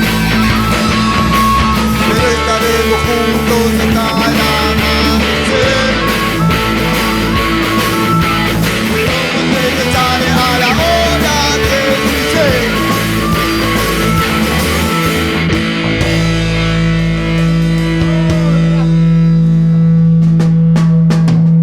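Rock music with guitars and drums. About three-quarters of the way through, it settles into one low held chord ringing on while the higher parts fade away.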